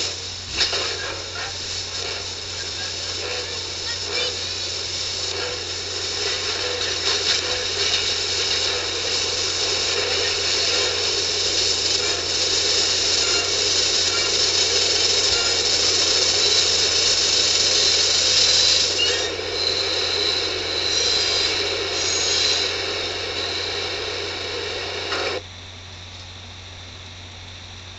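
Subway train running, loud rattling wheel-and-rail noise with a steady high metallic wheel squeal, building gradually. It cuts off abruptly near the end, leaving only a faint low hum.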